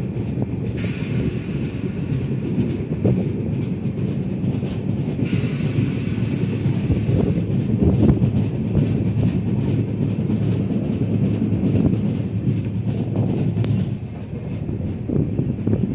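Indian Railways express train with red LHB coaches rolling slowly out of a station, heard from aboard: a steady low rumble of wheels on rails with clicks over rail joints and points. Two spells of high hiss come in, about a second in and again about five seconds in.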